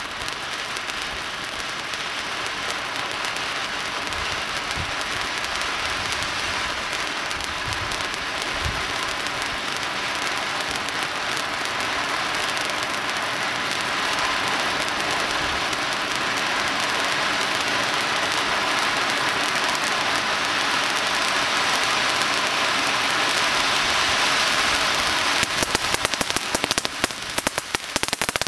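Zeus Fireworks Crazy Cone Fountain burning: a steady hiss of gold sparks that slowly grows louder, breaking into dense crackling near the end as the fountain starts throwing out crackling stars.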